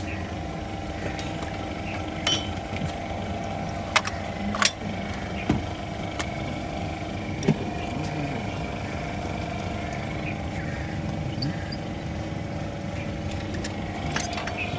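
Hand tools and metal parts clinking as ignition coils and their bolts are worked on in a car's engine bay: a few sharp clicks, mostly between about four and eight seconds in, over a steady mechanical hum.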